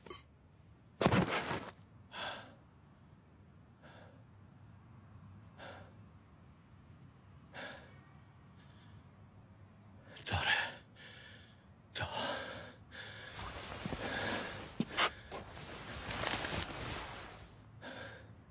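Gasps and heavy breathing of a badly injured man, with a breathy whispered word about ten seconds in. A loud gasp comes about a second in and a few faint breaths follow over the next several seconds. The breathing grows louder and more continuous in the second half.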